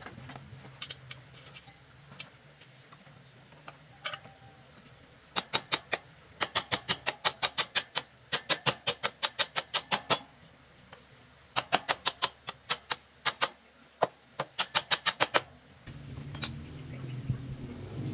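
Hand socket ratchet wrench clicking in quick runs of several clicks a second, with short pauses between the runs, as it is swung back and forth on a nut at a motorcycle's rear wheel.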